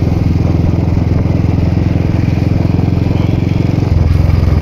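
A two-wheeler's small engine runs steadily at cruising speed as it rides along, with rapid even firing pulses. The note drops slightly about four seconds in.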